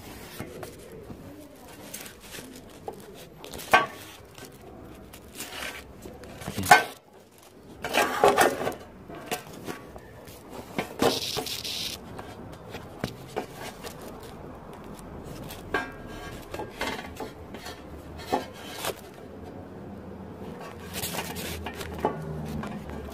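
Clatter of tools and materials being handled during tiling work: scattered sharp knocks and clinks, the loudest about seven seconds in, a rasping scrape a second later, and a brief hiss about eleven seconds in.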